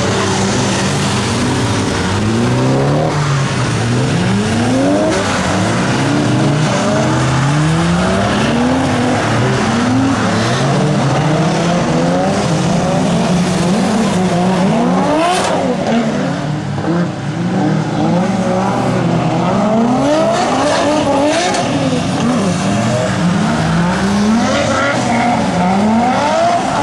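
Car engines on a race circuit revving up and down, several pitches overlapping, over a steady hiss of tyre noise.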